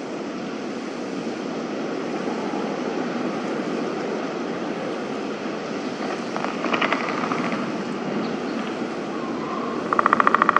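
Snowy winter ambience: a steady hiss of wind. A short burst of rapid pulsing comes about two-thirds of the way through, and a louder one near the end.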